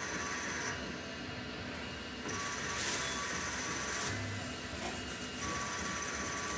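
Tormach CNC lathe turning aluminum. The spindle runs steadily while the tool makes repeated cutting passes. A hissing cut with a high whine comes and goes about every three seconds.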